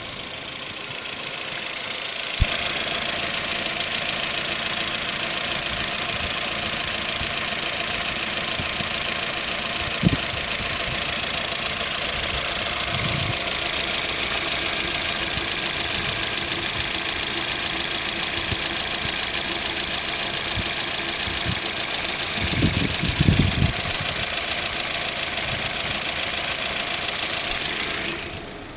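A 2016 Kia Rio's 1.4-litre four-cylinder petrol engine idling steadily, heard up close in the open engine bay. The sound grows over the first couple of seconds as the microphone moves in and falls away near the end as it moves off.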